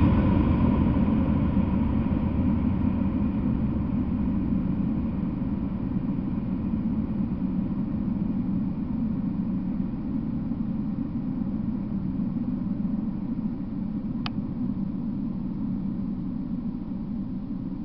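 Rumble of a freight train fading slowly as it recedes down the track after the last car has passed, with a single brief click about fourteen seconds in.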